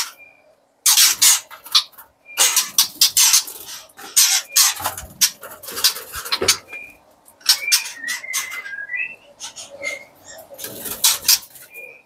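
White-rumped shamas fluttering in a wire aviary as one is chased with a hand net: repeated bursts of wing-flapping and rustling against the mesh, with short high chirps in between.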